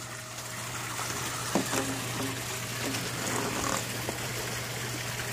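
Koi pond water trickling steadily over a steady low hum, with a few faint knocks.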